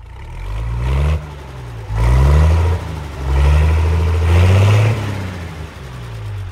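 A large vehicle engine accelerating, its pitch climbing in several runs with surges of loudness, like a heavy machine working up through its gears.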